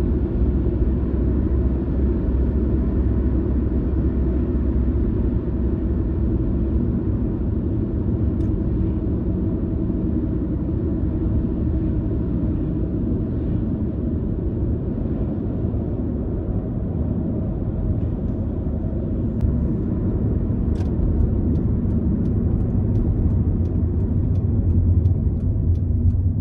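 Steady low rumble of background noise, with a few faint ticks near the end.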